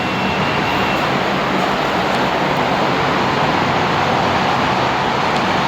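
Lift machinery running: a steady, loud rumble with a rushing hiss.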